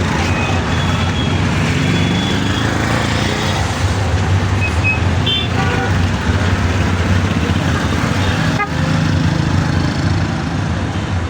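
Road traffic: a vehicle engine running with a steady low hum over a constant noisy wash, with a few short horn toots in the first half.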